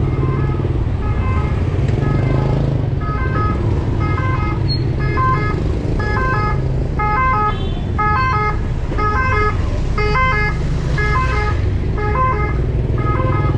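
A repeating electronic beeping tune, short notes of several pitches about twice a second, getting louder after the first couple of seconds, over a steady low rumble of street traffic.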